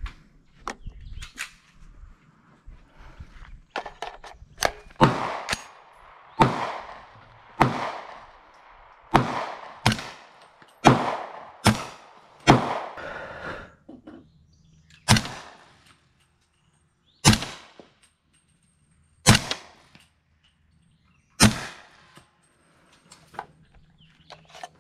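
AR-15 rifle in .300 Blackout, fitted with a suppressor, firing about a dozen single shots. The shots come roughly a second apart, then slow to about two seconds apart, as the rifle is being sighted in. A few light handling clicks come before the first shot.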